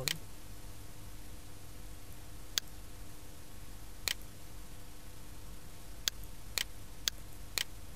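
Computer mouse clicking: about seven sharp single clicks at uneven intervals, three of them close together near the end, over a steady low electrical hum.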